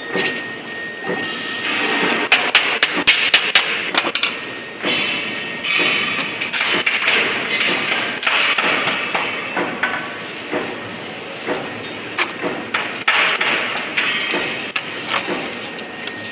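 Thin steel strips for a wound transformer core clattering and rattling as they are handled and fitted into the core. Irregular sharp metallic taps and knocks, thickest about two to four seconds in.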